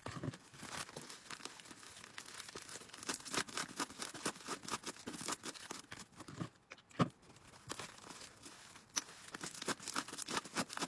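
Sticky fluffy slime made with clear glue being kneaded and stretched by hand, giving rapid, irregular crackling and tearing pops as it pulls apart. The slime is still sticky and not yet fully set.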